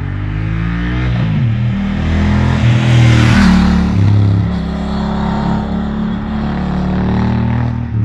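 Honda Africa Twin Adventure Sports' 998 cc parallel-twin engine under way, its note climbing and dropping several times as it accelerates, loudest as it passes about three seconds in.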